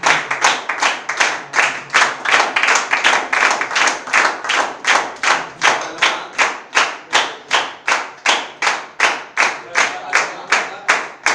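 A small audience clapping in a steady rhythm, about three claps a second, clapping along in time.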